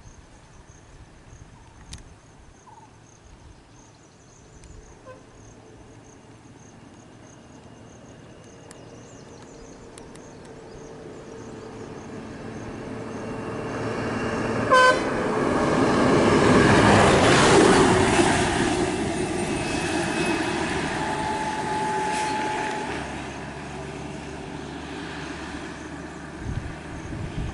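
A large road vehicle approaching: its engine and tyre noise builds to a peak about two-thirds of the way through, then eases off. A short horn toot sounds just before the peak. Before the vehicle arrives, a steady high insect buzz is heard.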